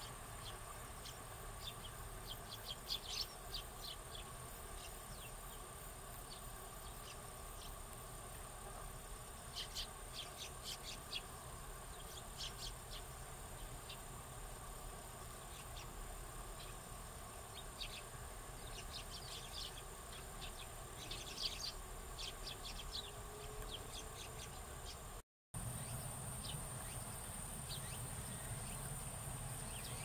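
A flock of Eurasian tree sparrows chirping in short, scattered clusters over a steady, high-pitched insect drone. The sound cuts out for a moment near the end.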